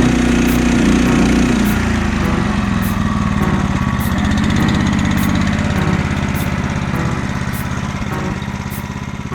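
Honda hybrid snowblower's engine running steadily, its low note shifting about two seconds in and the level easing down toward the end, with background music faintly under it.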